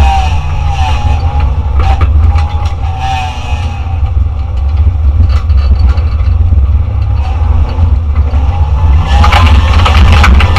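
Competition car's engine heard from inside the stripped cabin during an autocross run, its pitch rising and falling repeatedly as the driver accelerates and lifts between corners, over a heavy low drone. It gets louder about nine seconds in.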